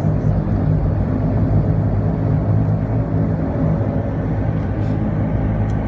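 Dash 8's twin turboprop engines and propellers droning steadily, heard from inside the cabin as the aircraft taxis.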